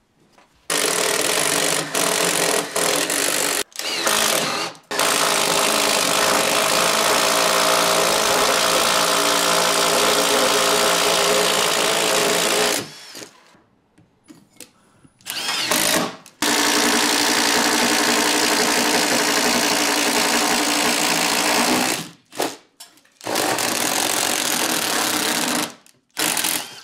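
Cordless drill boring a long bit up through a wooden joist, running steadily in several long runs broken by short pauses.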